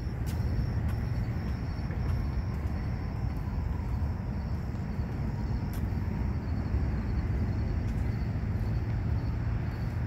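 Steady low rumble of city background noise, the hum of traffic around a downtown canal walkway.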